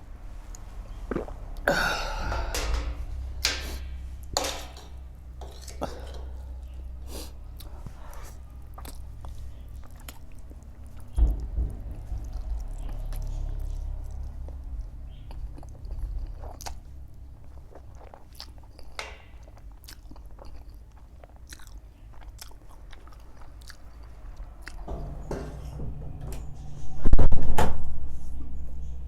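Close-miked chewing of spicy noodles, with many small mouth clicks scattered through it. A louder burst of noise comes near the end.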